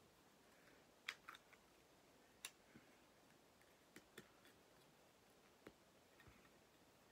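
Near silence broken by about seven faint, sharp plastic clicks and taps, spread unevenly over several seconds, as the small plastic stand and stand base of a model airliner are handled and fitted together.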